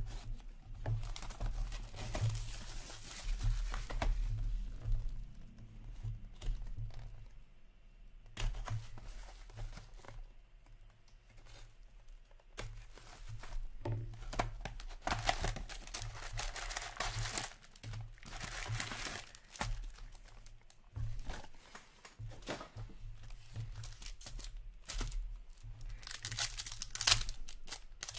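Plastic shrink wrap being torn off a hockey card box and card packs crinkled open, in several irregular bursts of tearing and crinkling.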